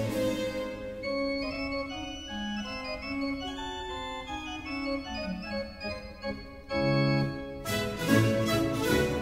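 Background organ music: held chords with notes moving over them.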